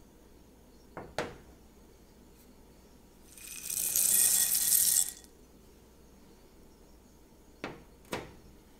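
Pumpkin seeds poured from a small ceramic bowl into a glass mixing bowl: a dry, rattling patter lasting about two seconds. Two light knocks come about a second in and two more near the end, as the small bowl is picked up and set down.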